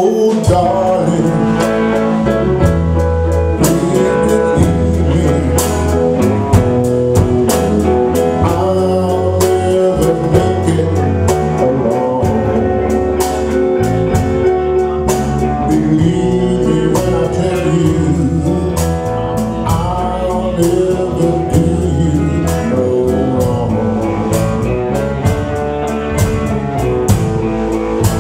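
Live blues band playing with drum kit and cymbals, electric bass and organ.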